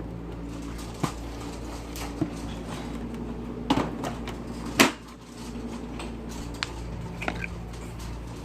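Several sharp knocks and bumps, the loudest near the middle, over a steady low hum.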